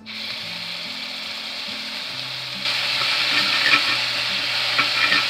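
Ginger-garlic paste sizzling and frying in hot oil in a cast-iron kadai while a spatula stirs it. The sizzle grows louder about halfway through, with light scrapes and taps of the spatula against the pan.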